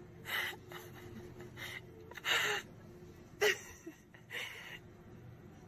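An orange tabby cat snuffling and rubbing its face in loose dried catnip on a hard tabletop: about five short breathy bursts, the loudest a little over two seconds in.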